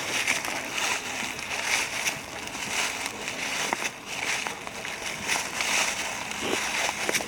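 Footsteps walking through dry fallen leaves, each step a crunching rustle at a steady walking pace, with a few sharp snaps of twigs underfoot.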